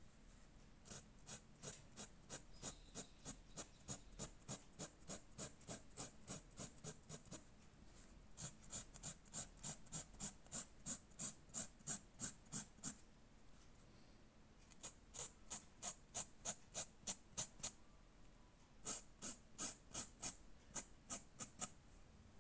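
Textile marker rubbed back and forth on printed fabric in short, even strokes, about three a second, in four runs separated by brief pauses.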